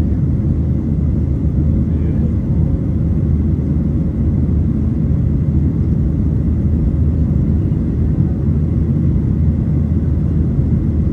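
Airplane rumbling with a loud, steady low drone that neither rises nor falls.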